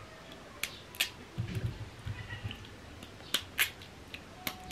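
A kitchen knife slicing pieces off a peeled taro corm held in the hand, a few sharp snaps as the blade cuts through the firm flesh.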